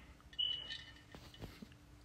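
A short, high electronic beep about half a second in, followed by a few faint soft clicks over quiet room tone.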